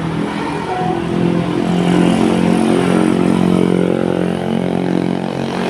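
Tour bus diesel engine running as the bus passes close by, a steady low drone that grows louder about a second in and holds.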